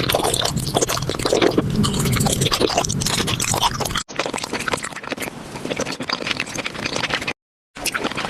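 Paper crinkling and scraping as it is handled, a dense crackle of fine clicks. The sound stops abruptly about four seconds in and again just after seven seconds, then resumes each time.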